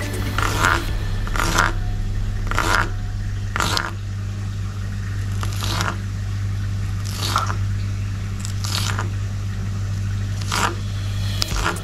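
Kitchen knife slicing a green bell pepper into strips on a plastic cutting board: crisp cuts, about ten of them at uneven intervals of roughly a second.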